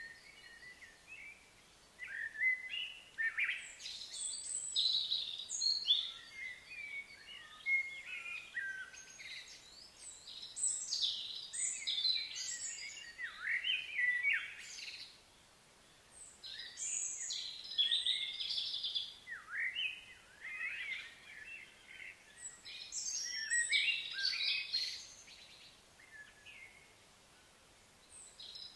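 Wild birds singing and chirping in bouts of quick, varied phrases, with short lulls between them.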